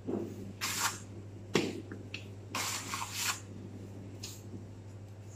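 Plastic dough scraper scraping crumbly pistachio dough across the worktop and into a metal baking tray: a series of short scrapes, the longest about halfway through, over a steady low hum.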